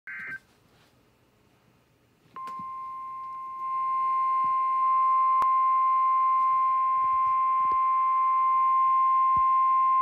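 Midland 74-200 NOAA weather alert radio receiving a warning: a brief burst of the digital SAME header tones, then about two seconds later the steady 1050 Hz weather radio warning alarm tone comes on, growing louder about a second after it starts.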